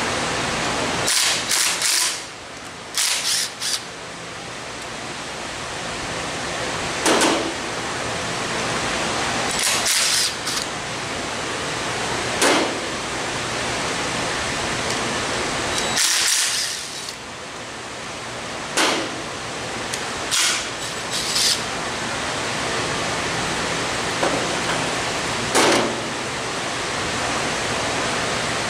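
A steady rushing hiss runs throughout, with about a dozen short, irregular clanks and rattles of hand tools and engine parts being handled and set down, some in quick pairs.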